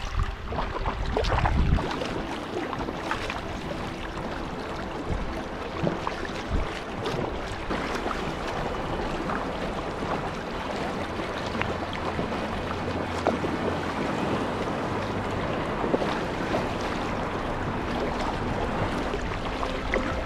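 Sea kayak moving through choppy water: water splashing and rushing against the hull and paddle blades dipping and splashing with each stroke. Wind rumbles on the microphone in the first two seconds.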